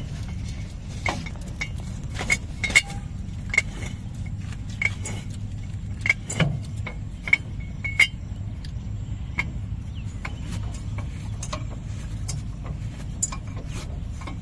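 Irregular sharp metal clinks as a bottle jack's threaded extension is turned up by hand against a tractor axle. They come often in the first half and thin out later, over a steady low rumble.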